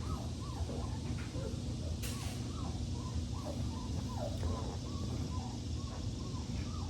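Young puppies whimpering and squealing, a quick run of short rising-and-falling whines, over a steady low hum.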